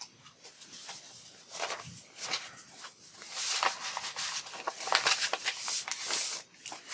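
Sheets of paper and cardstock rustling, scraping and flapping as they are lifted and shuffled by hand. The handling is busiest in the second half.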